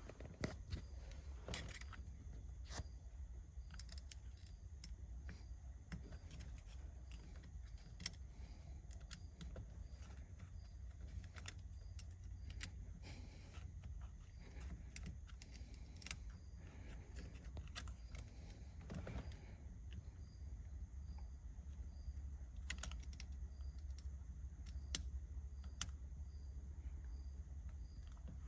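Faint, scattered clicks and metallic taps of hand tools, over a steady low hum, as a car's steering wheel is worked off by hand.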